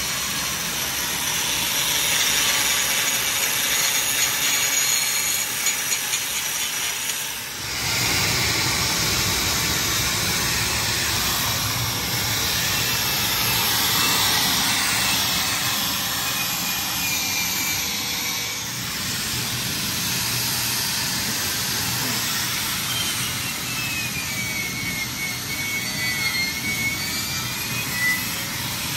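Electric angle grinder running against steel: a cut-off wheel cutting the heads off ball-joint rivets, then, after a short break about seven seconds in, a wire brush scouring rust from a frame rail and grinding on a suspension control arm.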